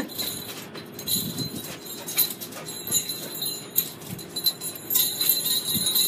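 Homemade jingle-bell begleri jingling in irregular bursts as the bells on the cord are swung and flipped between the fingers.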